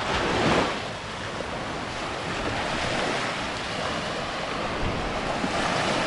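Small surf washing onto a sandy beach, with a louder wave surging in at the start, and wind rumbling on the microphone.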